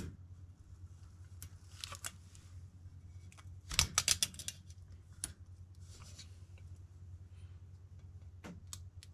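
Clicks, taps and short rustles of hands pressing stickers onto a plastic motorcycle windshield and lifting and turning it, with a brief cluster of quick clicks about four seconds in. A steady low hum runs underneath.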